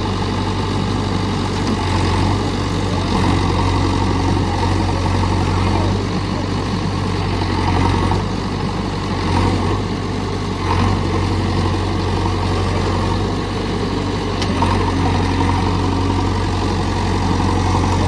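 JCB 3DX Xtra backhoe loader's diesel engine running steadily as the machine works through deep mud, its note swelling and easing every few seconds.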